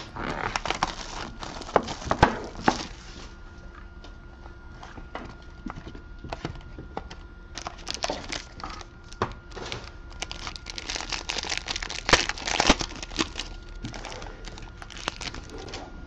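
Plastic shrink wrap and a foil pack wrapper crinkling and tearing as a sealed trading-card box is opened by hand, with sharp clicks and rustles of the cardboard box being handled.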